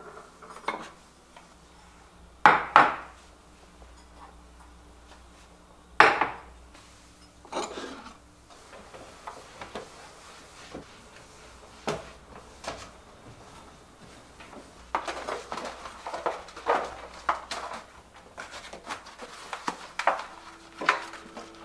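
Ceramic bowls clinking and knocking against each other and the metal drawer as they are lifted out of a pull-out kitchen drawer, with two sharp knocks a few seconds apart, then a run of lighter clinks and scrapes.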